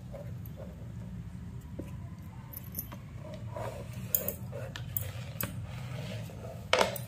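Fingers scraping and sweeping grated bottle gourd across a plastic cutting board and dropping it into a bowl of flour, with small clicks and taps of board and bowl, a few sharper ones in the second half, over a steady low hum.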